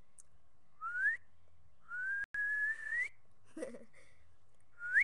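A person whistling three rising notes: a short upward whistle, then a longer one that climbs slowly, then another short upward whistle near the end.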